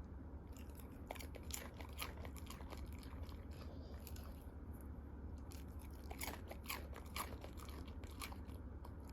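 A Jindo dog chewing and crunching food in two bouts of quick crunches, the first near the start and the second after a pause of a few seconds.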